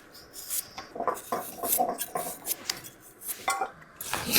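Light, irregular clinks and knocks of dishes and kitchen utensils being handled.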